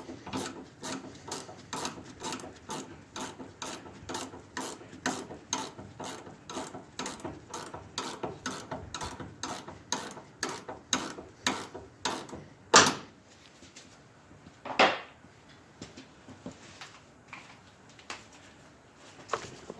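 Hand socket ratchet clicking steadily, about three clicks a second, as a shock absorber mounting nut is run down. The clicking stops about two-thirds of the way through, followed by two louder single metal clacks and a few faint knocks.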